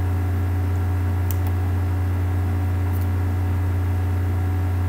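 Steady low electrical mains hum, with two faint brief clicks about a second and three seconds in.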